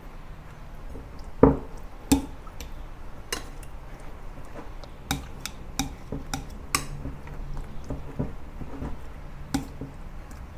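Metal tongs clinking against a glass mixing bowl as pork chops are turned in a wet marinade, with soft squishing of the meat. Irregular scattered clicks, the loudest two knocks about a second and a half and two seconds in.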